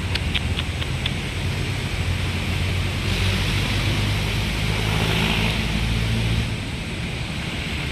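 An engine running, with a steady rushing noise; it grows louder about three seconds in and eases off after about six and a half seconds.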